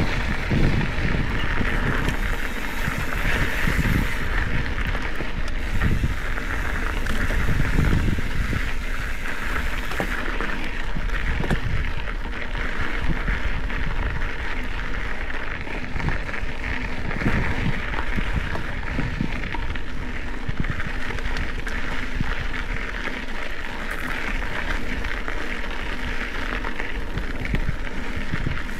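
Specialized Epic 8 Evo mountain bike rolling along a dirt desert singletrack: a steady hiss of tyres on dirt and gravel with small knocks and rattles from the bike, while wind buffets the microphone in low gusts.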